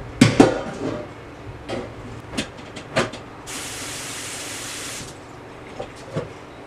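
Clattering knocks of kitchenware, then a steady hiss of steam for about a second and a half, starting and stopping sharply, and two lighter knocks near the end.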